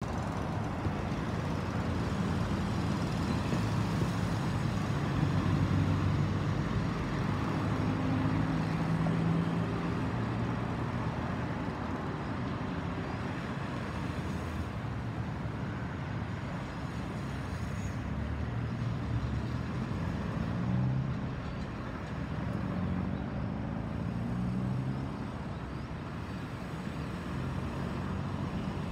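Road traffic noise from a street: cars and motorbikes running and passing. An engine revs up and down a few times around twenty seconds in.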